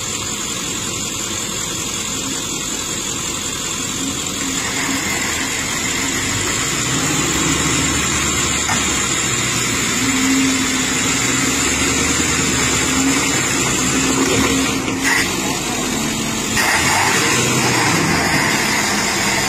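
Vehicle engines running under load as a tow strap drags an SUV up out of floodwater, growing louder about five seconds in and wavering in pitch as the throttle is worked.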